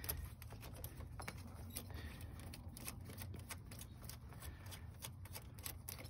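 Steel snow-chain links faintly clinking and rattling as they are unhooked by hand from the tyre, in many small irregular clicks over a low background hum.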